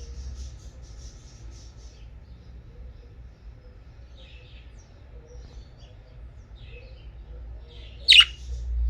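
Pet budgerigars chirping softly, a rapid twittering at first, then scattered short chirps, with one loud, sharp call near the end.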